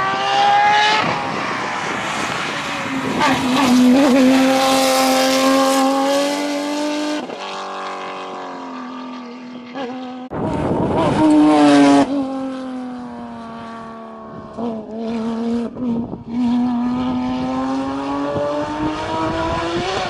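Porsche 997 GT3 rally cars' flat-six engines at high revs. First one car accelerates with a rising engine note, holds high revs and passes by. After a cut about ten seconds in, a second car's revs drop, break off briefly a few times for gearshifts and then climb again as it pulls away.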